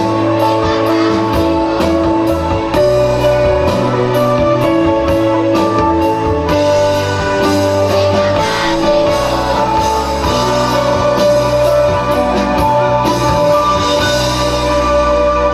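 Instrumental music with guitar and a steady drum beat, with sustained notes held over it.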